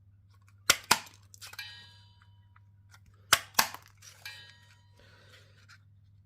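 Paper craft punch cutting shapes from cardstock. There are two punches, each a pair of sharp snapping clicks about a quarter second apart, followed by a light knock and a short ring.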